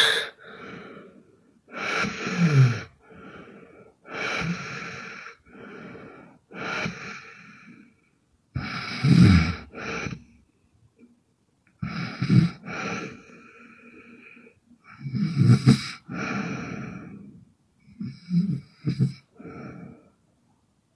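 A sleeping woman snoring hard, with rough, wheezy breaths coming every one to two seconds.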